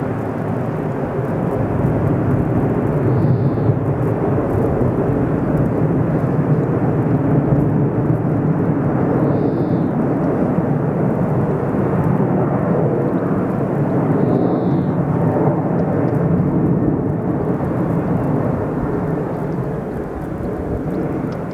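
Airbus A380 jet airliner flying overhead, its four turbofan engines making a loud, steady, deep rumble that stays even as it climbs and banks, easing slightly near the end.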